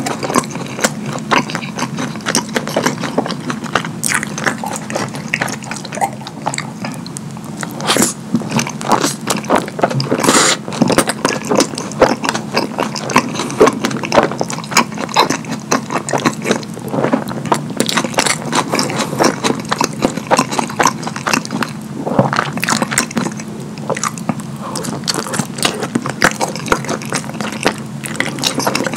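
Close-miked wet chewing and lip-smacking of a mouthful of sauce-drenched burger, with many small squelches and clicks throughout. A faint steady hum runs underneath.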